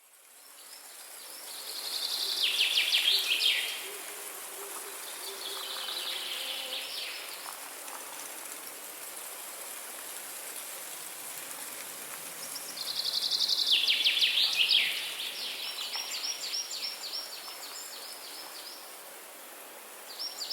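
Forest ambience: a songbird sings several rapid trilled phrases a few seconds each, high in pitch, over a steady faint high hiss. The sound fades in at the start.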